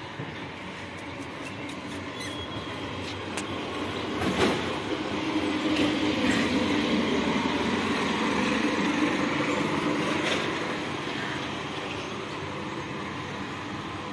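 A vehicle passing close by: a loud rumble that builds over a few seconds, holds, then fades over the last few seconds, with a few sharp clicks on top.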